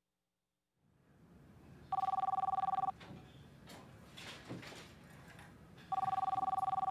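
Telephone ringing: after about a second of dead silence, two fluttering two-tone electronic rings, each about a second long and about four seconds apart, with faint room noise between them.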